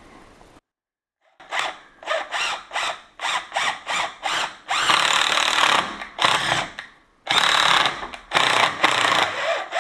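Power drill boring into a concrete-filled steel door frame, with a hex-head self-drilling screw used as a throwaway bit. It starts after a moment's pause and runs first in a string of short bursts, then in longer runs of about a second each, with more short bursts near the end.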